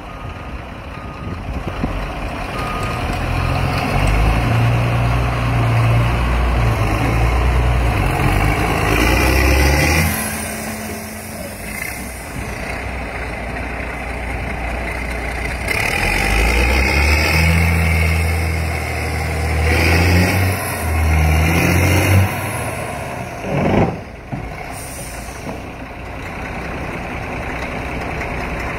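Caterpillar 14G motor grader's diesel engine running, revved up for several seconds, dropped back to a lower speed, then revved up again, with a short surge near the end.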